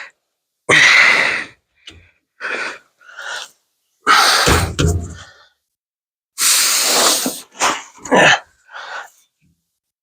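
A man's strained, forceful breathing and huffs in several separate bursts with short pauses, the effort of compressing a new rear shock absorber by hand to fit it.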